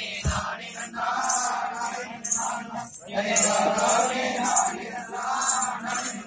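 Voices singing a Tamil kummi folk song, with a bright rhythmic beat keeping time about twice a second. The singing breaks off briefly about halfway through.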